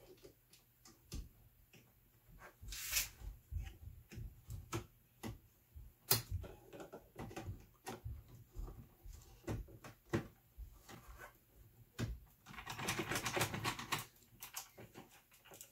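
Irregular clicks, taps and scrapes of a gloved hand working a breaker's white neutral wire into a terminal on the neutral bus bar of a metal electrical panel, with a denser run of scratching and rustling about three-quarters of the way through.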